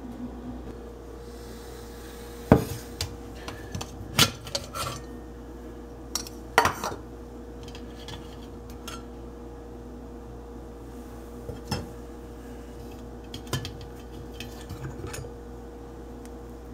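Stainless-steel percolator being taken apart: scattered sharp metal clinks and clatters as the perforated spreader cover and the basket of spent grounds are lifted out of the pot, in small clusters with pauses between.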